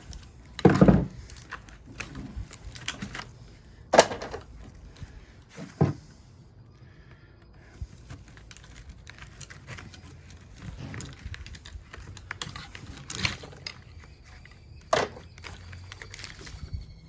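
Metal knocks and clunks with smaller clicks and scrapes while copper windings are worked out of an old farm welder's transformer; five louder knocks stand out among the rattling.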